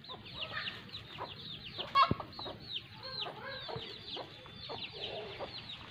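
A brood of chicks peeping, a continuous stream of short, high, falling cheeps, with a hen clucking lower beneath them. A single sharp knock about two seconds in is the loudest sound.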